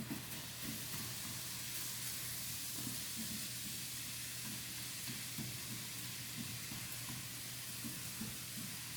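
Turkey sizzling as it cooks: a steady hiss with small irregular pops, over a steady low hum.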